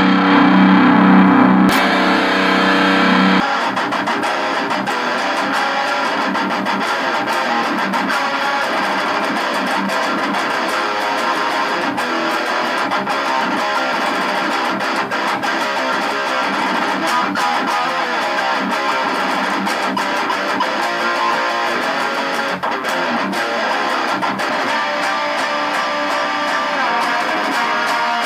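Electric guitar played through a Mooer Micro Preamp 001 and a Mooer Baby Bomb 30-watt power amp into a guitar speaker cabinet. A chord rings out steadily for the first few seconds, then continuous strummed and picked playing follows.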